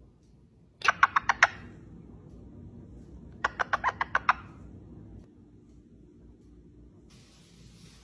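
Ringneck parakeet making quick kissing sounds, two short bursts of about six or seven rapid smacks each, about a second in and again about three and a half seconds in.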